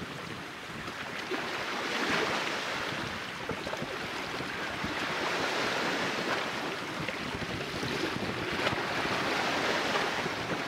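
Small sea waves washing on the shore, a steady hiss that swells and eases three times.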